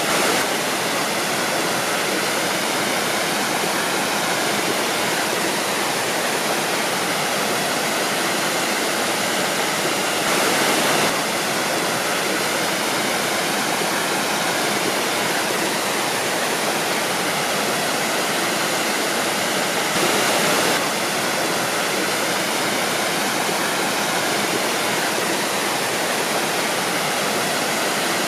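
Waterfall: water pouring and crashing in a steady, dense rush, briefly a little louder twice, about ten and twenty seconds in.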